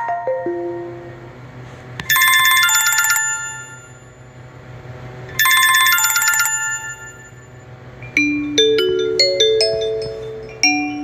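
Ringtones from a TCL A1 (A501DL) phone. The end of a falling run of short notes gives way to a bright, trilling telephone-style ring in two bursts, each just over a second long and about three seconds apart. A new tune of short notes starts near the end.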